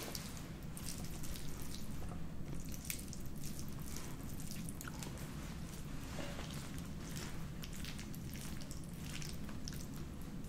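Creamy carbonara spaghetti being tossed and twirled in a hollowed pecorino cheese wheel, making many small, wet, sticky clicks and squishes.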